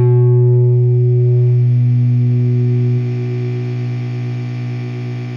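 A held, distorted electric guitar note ringing out through an EVH 5150III 100S tube amp head and slowly dying away over a steady low hum. The level drops suddenly about three seconds in.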